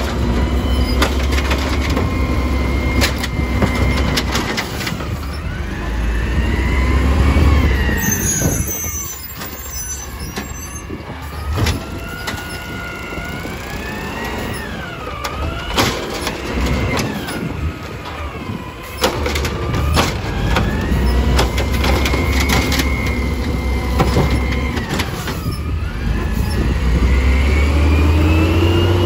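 Automated side-loader recycling truck working its lift arm: the engine revs up and down as the arm raises a wheeled bin, dumps it into the hopper and lowers it, with a whine that rises and falls with the revs and repeated clanks of bin and arm.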